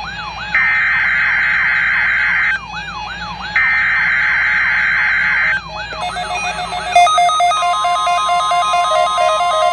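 Emergency Alert System SAME header data bursts for a weather radio required weekly test: loud, buzzing, screechy data tones sounding twice with about a second's gap, over a siren that sweeps up and down about three times a second. From about six seconds in, a run of stepped electronic tones like music takes over, with a steady tone running under it.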